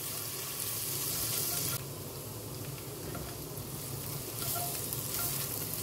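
Chopped garlic sizzling in melted butter in a pot as a spatula stirs it. The sizzle softens about two seconds in and picks up again near the end.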